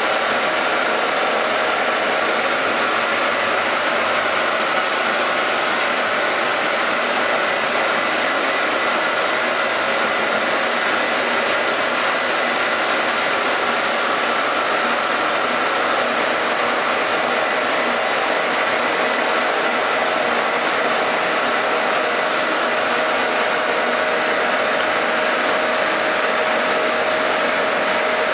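Metalworking machine tool running steadily, its cutter working on metal: an even hiss of cutting with a few faint steady whining tones.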